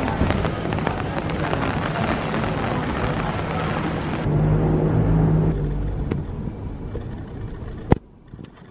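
Outdoor city ambience: a dense rush of noise with many small clicks. About four seconds in it gives way to a low steady hum that fades out, and one sharp click comes near the end.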